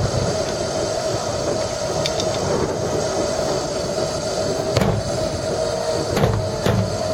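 Marching band holding one sustained note, with three percussion hits in the second half, under heavy wind rumble on the microphone.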